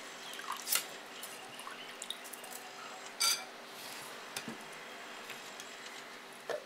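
Wet scooping and dripping as a metal ladle moves soaked rice and urad dal with water from a glass bowl into a steel mixer jar, with a few short clinks of the ladle. The loudest clink comes a little past halfway.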